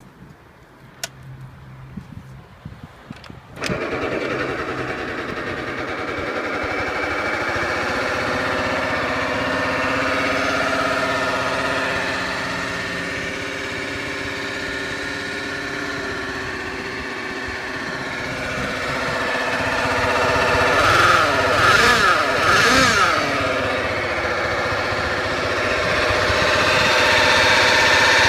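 Honda Zoomer scooter engine starting about three and a half seconds in after a few clicks, then running steadily. It is revved up and down a few times near three-quarters of the way through and runs a little faster at the end. The uploader calls it an abnormal noise, without saying what it is.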